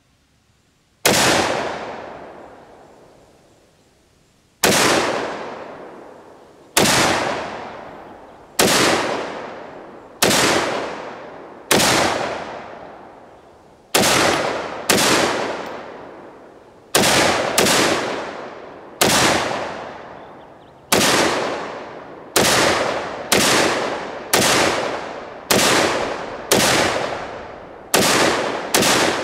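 AR-15 rifle chambered in .223 Wylde, fired semi-automatically: about twenty single shots, each trailing off for a second or more. The shots come two to three seconds apart at first, then quicken to about one a second.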